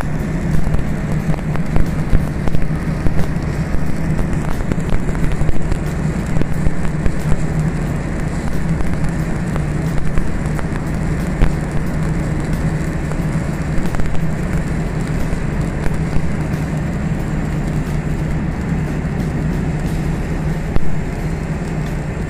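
Electric arc welding crackling and sputtering over a steady low machine hum, with a few sharper pops in the first several seconds.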